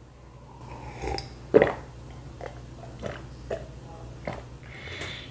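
A person gulping a drink from a glass jar: a series of separate swallows, roughly one every half second to a second, with a sharper, louder one about one and a half seconds in.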